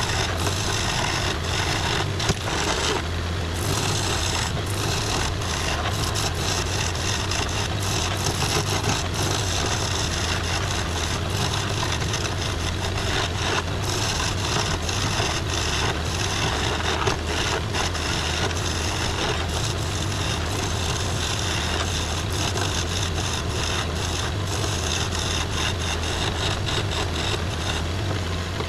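Wood lathe running with a steady motor hum while a skew chisel cuts the spinning wooden spindle, a continuous rough scraping and shaving of the wood with small irregular catches.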